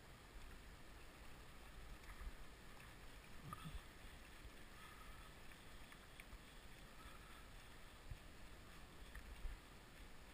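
Near silence: the faint steady rush of a river flowing over gravel, with a low rumble and a few soft knocks.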